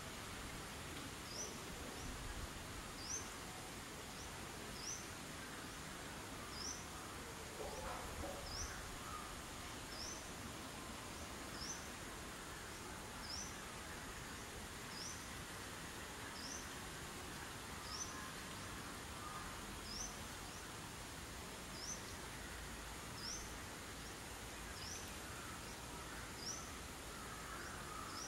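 A bird's short, high chirp repeated about once a second, evenly, over steady outdoor background noise.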